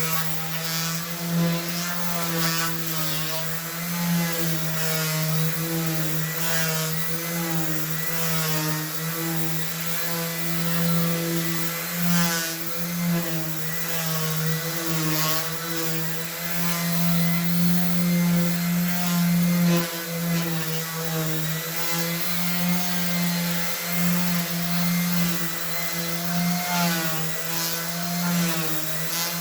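Handheld electric sander running steadily, its motor pitch wavering slightly as it is pressed onto the jointer's cast-iron table to sand off rust with 100-grit paper.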